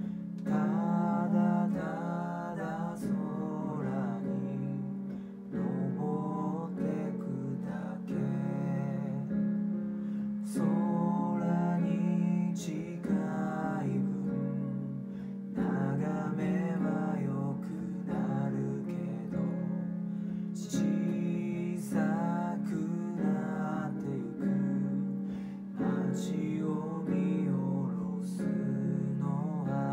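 A man singing a Japanese song, accompanied by an acoustic guitar.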